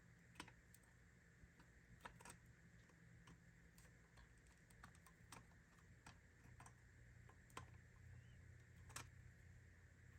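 Near silence with faint, irregular light clicks and taps from the small metal parts of a Model T ignition switch being handled.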